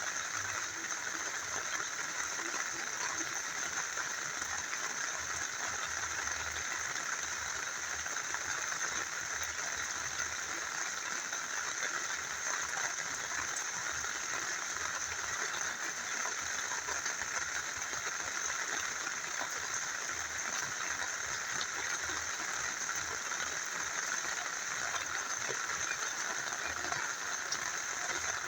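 Steady rain falling together with a small river flowing: an even, unbroken hiss and rush of water.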